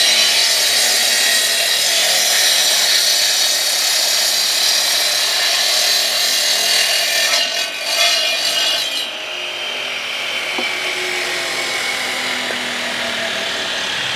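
A power masonry saw cutting through a concrete block, a loud, steady grinding cut. About nine seconds in the high grinding eases and the saw runs on more evenly.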